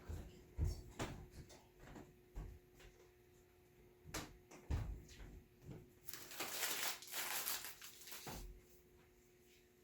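Light knocks and clicks of parts and tools being handled on a work surface during a phone screen glass repair, with about two seconds of scratchy rubbing some six seconds in.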